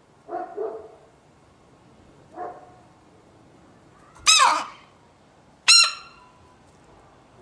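An animal's short, sharp sounds with a clear pitch: a quick double near the start, a softer one a couple of seconds later, then two loud, high ones about a second and a half apart.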